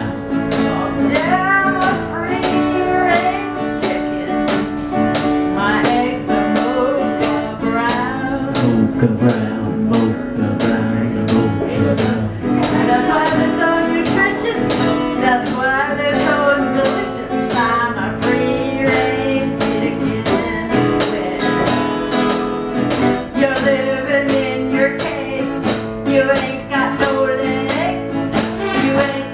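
Live band playing a country-style song: strummed guitar and a drum kit keeping an even beat, with cymbal or snare hits about twice a second, and a male voice singing.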